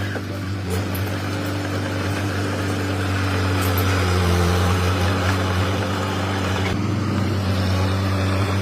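Komatsu D21P mini crawler bulldozer's diesel engine running steadily, getting a little louder about three seconds in.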